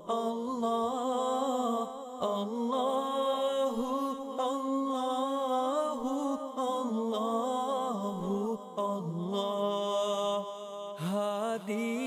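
A solo voice chanting in long, slow melodic phrases, holding and bending each note, with short pauses for breath between phrases.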